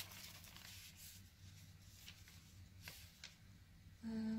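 Faint rustling and light taps of a card-backed package being handled and turned over, over a low steady hum. Near the end, a short hummed 'mm' from the voice.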